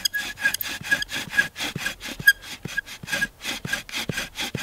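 Bow drill in use: the cedar spindle spun back and forth by quick, even bow strokes, grinding in the fireboard notch with a rhythmic rasp and a short squeak on many strokes, making dust.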